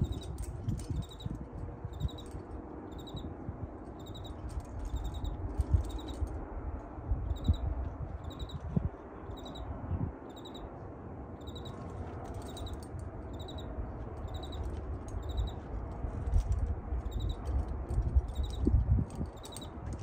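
Wind rumbling and buffeting on the microphone, with short high chirps from a small unseen creature repeating about twice a second in runs.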